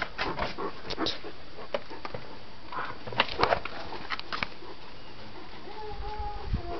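Light clicks and scuffs, like steps on a gravel path, through the first few seconds. Near the end comes a short, thin, steady whine lasting about a second.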